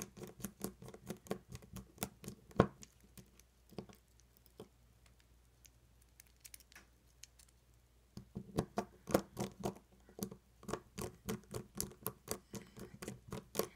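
Rapid small clicks and taps of metal lock parts being screwed into an ASSA Twin 6000 lock cylinder by hand, in two bouts with a quieter pause in the middle.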